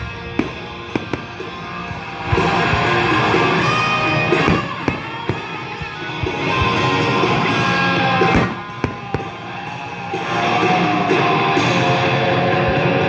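Rock music with electric guitar plays throughout and gets louder about two seconds in. Fireworks go off over it, with several sharp bangs in the first two seconds and a couple more later.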